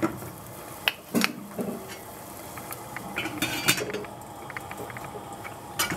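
Stainless steel saucepan and its metal lid clinking and knocking: the pan is moved on the gas hob's grate and the lid is set on, giving a few sharp metal clicks about a second in, a quick run of clinks midway, and one more knock near the end.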